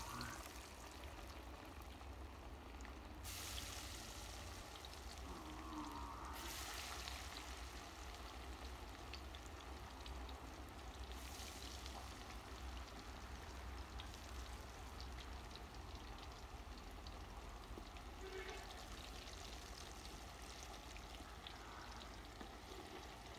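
Besan-battered fish deep-frying in hot ghee in a karahi: a steady sizzle, louder and brighter for a stretch a few seconds in.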